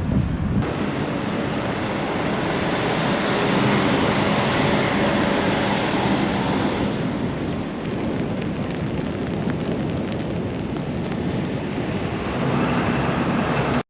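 Blizzard wind blowing hard across the microphone: a loud, steady rush of noise. The sound changes abruptly less than a second in.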